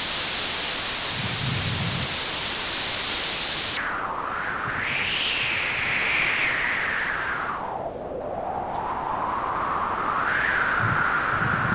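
Synthesized wind from Omnisphere: a noise oscillator through a resonant low-pass filter, played as a steady rushing hiss. About four seconds in the bright top end cuts off suddenly. What remains is a softer, whistling wind whose pitch slowly rises and falls as the filter cutoff drifts under light random modulation.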